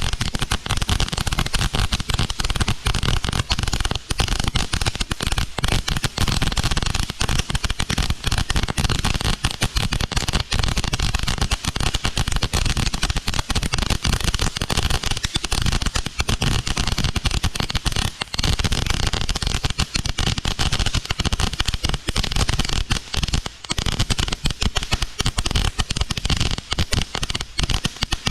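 Small ground firework crackling without a break, a dense, fast stream of sharp pops and crackles.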